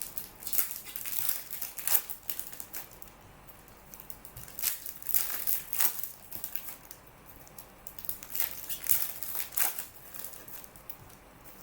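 Plastic trading-card pack wrappers crinkling and crackling as packs are handled and opened, in several bursts with short pauses between them.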